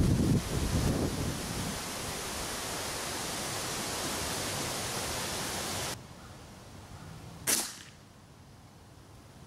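Wind rushing over the microphone, dropping away suddenly about six seconds in, then a single sharp air rifle shot, a pellet fired into the paper target.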